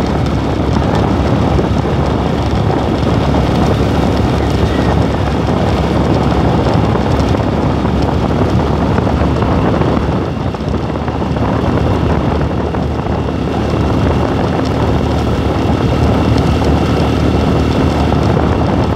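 Motorcycle engine running at a steady road speed, with heavy wind rush on the microphone. It eases slightly about halfway through.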